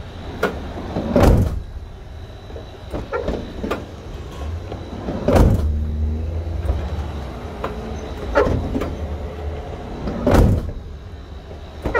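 Sliding side door of a 2016 Ford Transit 250 being worked along its freshly greased track and latches, with three heavy thuds about four to five seconds apart and a low rolling rumble between the second and third.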